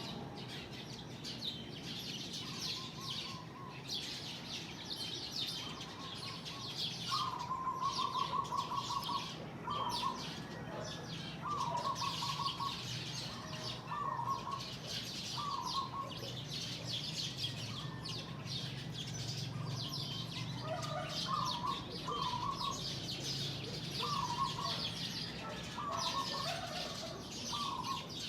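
A flock of small birds chirping together at their roost at dawn, a dense, continuous chatter of high notes. Over it, one bird repeats a short trilled call every second or two. A faint low hum runs underneath.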